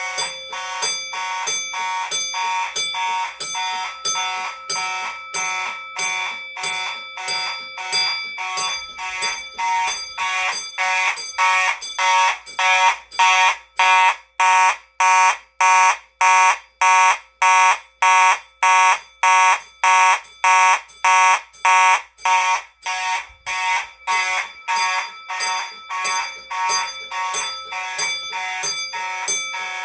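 Faraday fire alarm and a model railroad crossing signal sounding together in a steady pulse about twice a second. The pulses are louder and sharper between about 12 and 22 seconds in.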